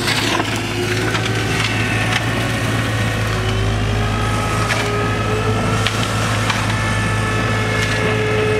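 Excavator-mounted flail mulching head running as it chews through grass and brush: a steady machine hum under a whine that wavers slightly in pitch, with scattered sharp cracks of cut material striking the head.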